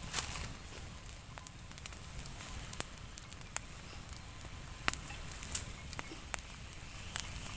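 Open wood fire crackling, with about a dozen sharp, irregular pops from the burning logs.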